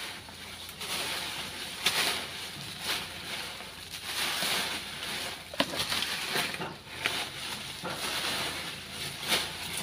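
Dry leaves crunching and rustling as a long-handled garden tool is chopped and scraped into a pile of them, with several sharp strikes along the way.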